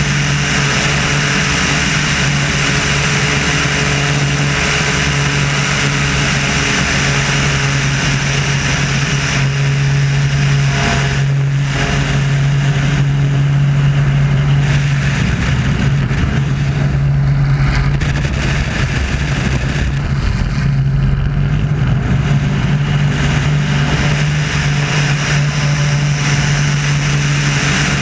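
Wolf Pitts Pro aerobatic biplane's M14P radial engine and propeller running hard through a display manoeuvre, heard from a camera mounted outside on the wing with wind rush. The note holds steady, and the sound shifts a little around the middle as the plane pulls up into a steep climb.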